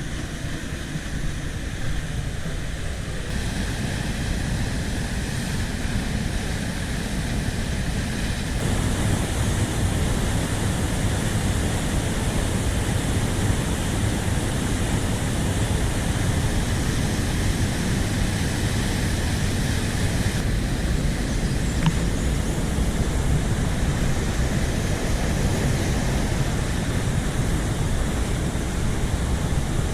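Aira Force waterfall rushing: a steady loud noise of falling water, its tone shifting about three, nine and twenty seconds in.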